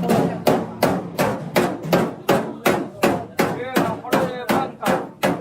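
A hammer beating out a dented car body panel: fast, even blows on sheet metal, about four a second, each with a short ring.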